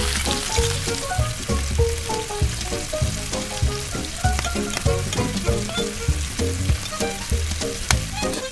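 Potato slices sizzling and bubbling in hot oil in a small wok. The sizzle starts as they drop in and keeps going steadily, over background music with a steady bass beat.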